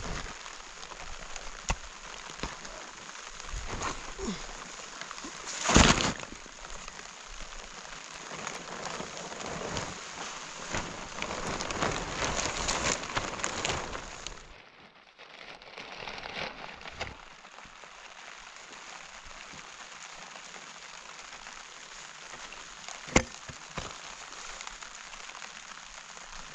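Rain falling steadily on a surface, with scattered small knocks. A loud sharp knock comes about six seconds in and another near the end. The rain is heavier for a few seconds before the middle, drops away suddenly, then goes on softer and more even.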